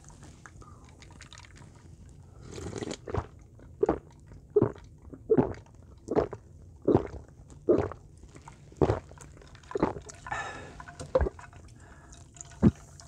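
A person gulping iced carbonated soda from a glass bowl: about a dozen loud swallows, a little faster than one a second, starting a couple of seconds in. There is a sharp clink near the end.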